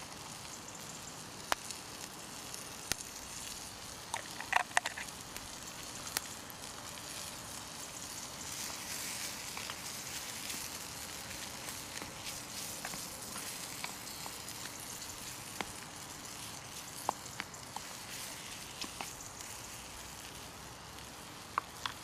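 Mushrooms, bacon and onions sizzling in a steel frying pan over glowing wood embers, a steady hiss that grows a little louder in the middle, with scattered sharp clicks.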